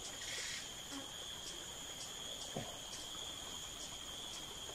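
Insects droning steadily at a high pitch, with faint pulses about twice a second. A soft tap a little past halfway.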